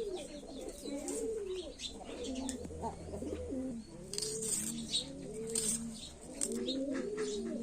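Several pigeons cooing over and over, their low arched calls overlapping one another, with a few short rustling or clicking noises in the middle.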